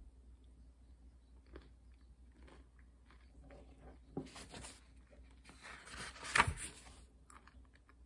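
Quiet chewing of crunchy food eaten from a bowl, in scattered bursts, loudest about six seconds in.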